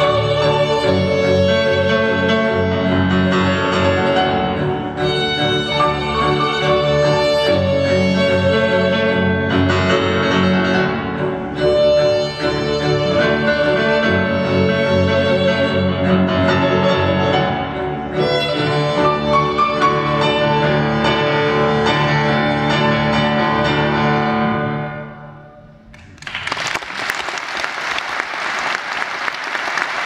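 Live string ensemble of violins, cello and double bass with piano playing sustained, repeating phrases, the final chord fading out about 25 seconds in. About a second later audience applause breaks out and keeps going.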